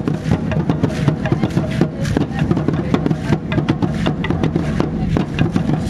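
Aztec dance drumming: large upright wooden drums beating a steady rhythm, with the dancers' ankle rattles clattering in time.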